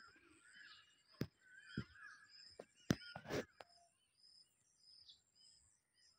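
Small birds chirping and trilling over and over, with a few sharp knocks between about one and three and a half seconds in.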